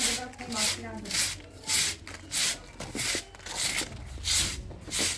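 Steady, rhythmic scraping strokes, about three every two seconds, like a hand tool worked back and forth over a rough surface.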